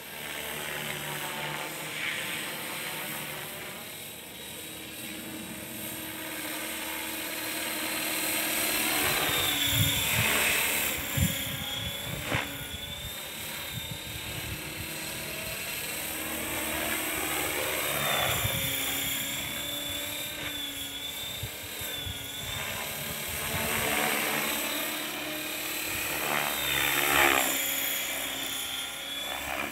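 Model helicopter flying overhead: a high, wavering whine that swells and fades as it passes back and forth. Wind buffets the microphone for a few seconds about a third of the way in.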